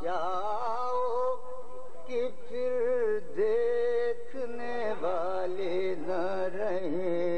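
A man singing Urdu verse in tarannum, the melodic chanted style of ghazal recitation, drawing out long held notes with a wavering ornament.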